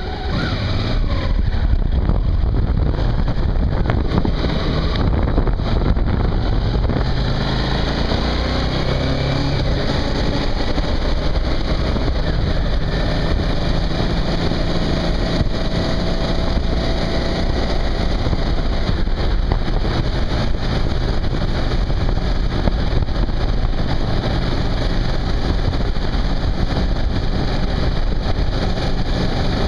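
Suzuki V-Strom motorcycle under way on the road: the engine runs steadily while wind rushes over the microphone. It picks up speed in the first seconds, then settles into a steady cruise.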